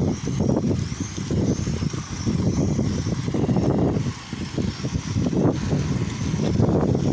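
Wind buffeting the microphone of a bicycle-mounted camera while riding, mixed with road rumble: a loud, uneven low rush that swells and dips from moment to moment.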